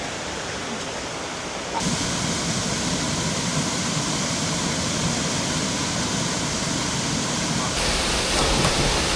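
Steady rush of running water, stepping up abruptly in loudness about two seconds in and turning brighter and harsher near the end.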